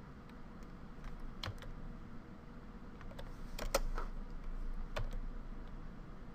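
A handful of scattered clicks from a computer keyboard and mouse over a faint steady low hum.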